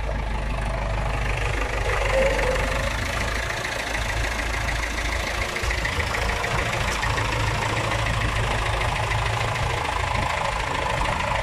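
David Brown tractor diesel engine running steadily at low revs.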